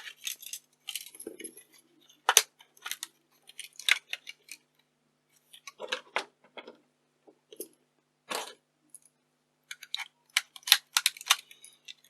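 Scattered clicks and light metallic clinks of a camcorder being taken apart by hand: a small screwdriver working on screws and thin metal shielding parts being handled and set down, in irregular taps with short pauses between them.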